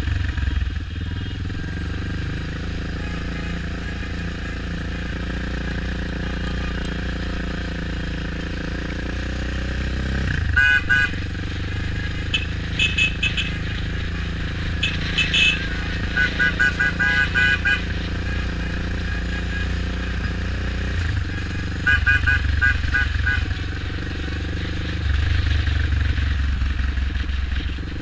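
A motorbike engine running along at low speed, with vehicle horns tooting in quick series of short beeps several times over the engine.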